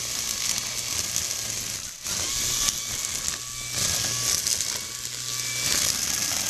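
Greenworks electric string trimmer running with zip ties in place of trimmer line, its spinning head whirring and thrashing through grass and weeds, with a short dip in level about two seconds in.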